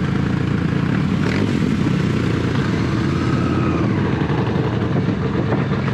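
Honda Valkyrie 1500's flat-six engine running steadily at low revs, with a second big motorcycle's engine running close by.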